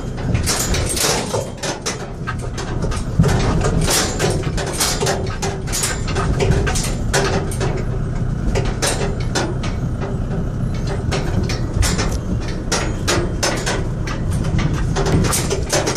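Car driving slowly over a badly broken, potholed gravel road, heard from inside the cabin: a steady low rumble of engine and tyres with frequent knocks and rattles as the wheels hit holes and loose stones.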